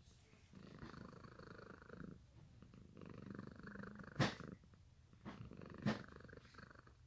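Domestic cat purring steadily, close up. Two brief sharp clicks cut through the purr, about four and six seconds in.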